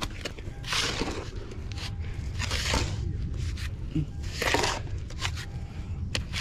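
Small shovel digging into sandy, gravelly soil, three scraping, crunching strokes about two seconds apart, with a few small clicks of grit between them: digging out from under a truck tire stuck in sand.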